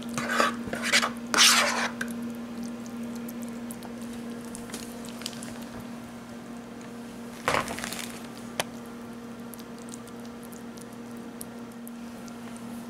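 Thick, wet chicken pot pie filling squishing as it is spooned into a pie crust, several loud wet plops in the first two seconds, then quieter scraping and small clicks as a fork spreads it, with another louder squish about seven and a half seconds in.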